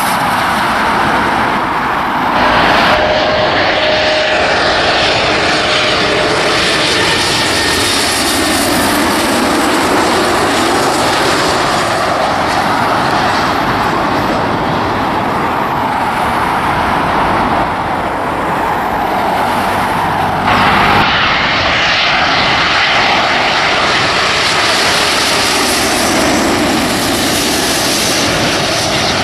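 Twin-engine jet airliners on low final approach passing close overhead: a loud, steady engine rumble with a whine that slides in pitch as each one goes by. The sound changes abruptly twice, where clips of different landings are joined.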